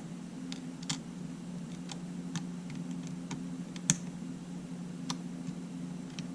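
Irregular light clicks and taps from small parts and tools being handled on a workbench, about nine or ten spread unevenly with a sharper one about four seconds in. Under them runs a steady low hum.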